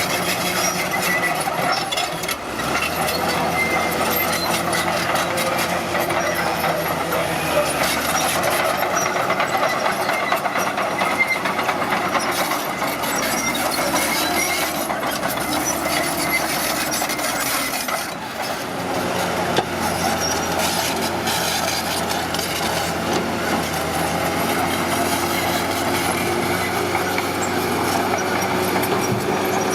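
Diesel engine of heavy earthmoving machinery running under load, with a dense mechanical clatter over it. The engine note shifts in pitch several times as the machine works.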